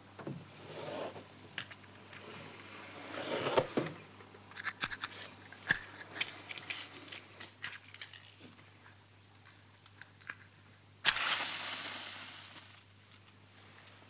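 Rummaging through a drawer in the dark: rustling, scraping and small objects clicking. About eleven seconds in, a match is struck sharply and flares with a hiss that dies away over a couple of seconds.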